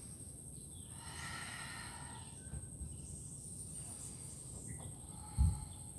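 Steady high-pitched buzz of insects in the surrounding forest, with a single low thump about five seconds in.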